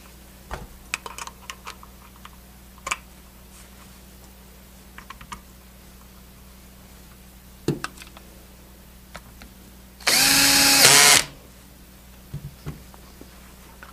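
Cordless screw gun on a low torque setting runs for about a second near the end, driving the screw that holds a handle onto a refrigerant manifold's valve feed screw. Before it come scattered small clicks and knocks of parts and tools being handled.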